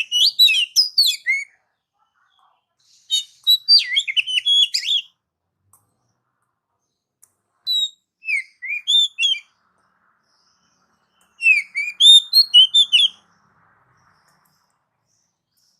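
Oriental magpie-robin (kacer) singing: four short phrases of rapid, varied whistled notes that sweep up and down in pitch, each lasting about one and a half to two seconds, with pauses of a couple of seconds between them.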